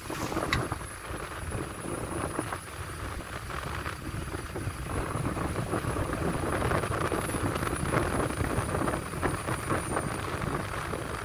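A vehicle driving steadily, with wind buffeting the microphone.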